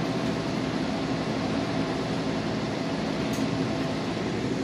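Steady machine hum with a few faint low tones under an even hiss, like a running fan or ventilation unit.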